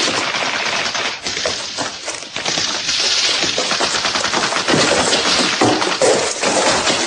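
Rapid machine-gun fire, a continuous crackle of many shots, easing briefly between about one and two and a half seconds in and then picking up again.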